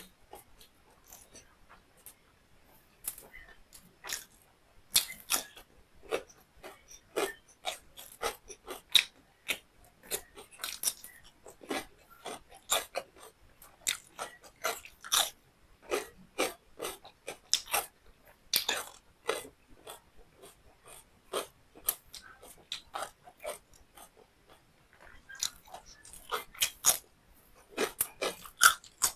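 Close-up chewing of beef liver and rice: a dense run of short mouth clicks and bites, thinning out for a few seconds about two-thirds of the way through.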